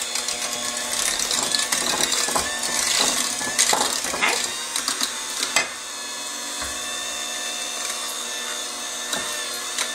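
Handheld electric mixer running steadily, its beaters churning thick cookie dough and clattering against the bowl; the clatter thins out about six seconds in while the motor runs on.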